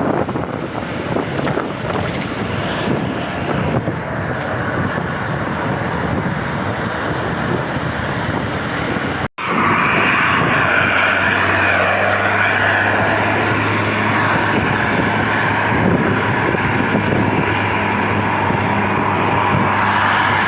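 Bus engine and road noise. It breaks off abruptly about nine seconds in, then resumes as a steadier, louder engine drone with a low hum.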